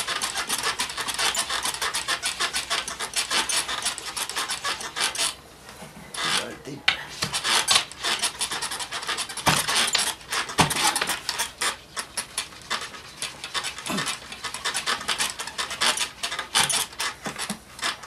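Deer tibia bone rubbed hard back and forth along a rattan bow stave, burnishing it to crush and smooth the fibres: a fast, steady scraping rub with a short pause about five seconds in. A few light knocks come in the middle.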